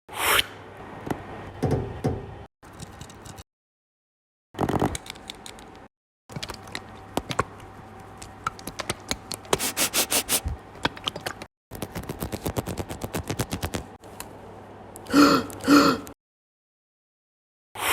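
Homemade foley sound effects in short spliced pieces broken by dead silence: scraping, scattered clicks and quick runs of tapping over a low electrical hum, with two loud knocks about fifteen seconds in.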